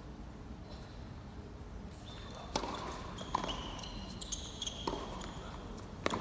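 Tennis rally on an indoor hard court: the ball cracks off the rackets and bounces, four sharp pops spaced about a second apart starting a couple of seconds in, with short high squeaks of shoes on the court between them.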